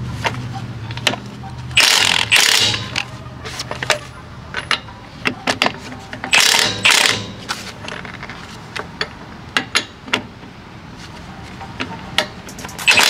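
Milwaukee FUEL brushless cordless impact wrench hammering on trailer wheel lug nuts in short bursts: two quick bursts about two seconds in, two more around six seconds, and another starting just before the end, with clicks between. Each burst is a final tightening pass, stopping once the socket no longer turns and the nut is tight.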